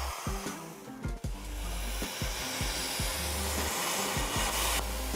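CNC plasma cutter hissing steadily as its torch cuts a steel plate, the hiss dropping away shortly before the end. Background music with a deep bass line plays underneath.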